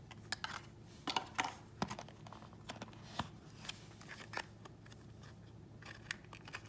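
Cardboard nail polish boxes being handled: irregular small taps, scrapes and rustles as the boxes are lifted out of and moved around a presentation box insert.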